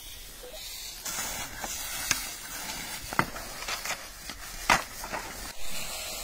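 Fire hose spraying water onto burning dry grass and debris, a steady hiss that grows louder about a second in. Several sharp cracks break through it, the loudest about three quarters of the way through.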